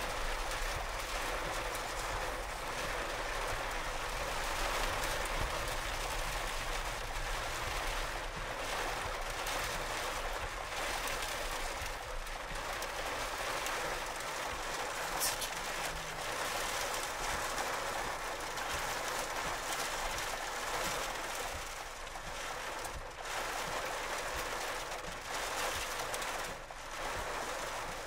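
Steady rushing noise of heavy rain and wind beating on a vehicle's windshield and body, heard from inside the vehicle.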